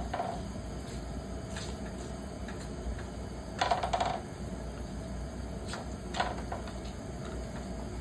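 Wooden spatula stirring chicken feet in a wok, with a few scattered knocks and clatters of the spatula and feet against the pan, the loudest cluster about halfway through.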